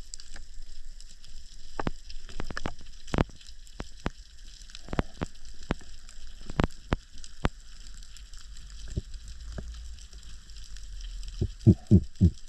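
Underwater reef ambience: sparse sharp clicks and crackles, typical of snapping shrimp, over a steady hiss. Near the end comes a quick run of four louder low knocks.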